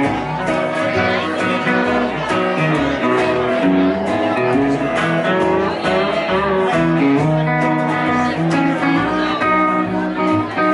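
Live band playing an instrumental passage: electric guitar and strummed acoustic guitar over an upright double bass, without singing.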